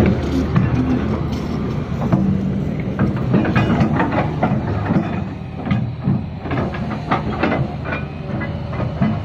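Doosan Solar 500LC-V crawler excavator running, its diesel engine humming steadily under clanks and rattles of steel from the tracks and working gear, which come thickest in the middle.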